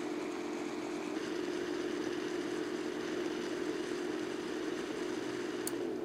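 Small 12 V LED computer fan running with a steady hum, switched by a digital thermostat. Near the end comes a sharp click, typical of the thermostat's relay cutting the fan off.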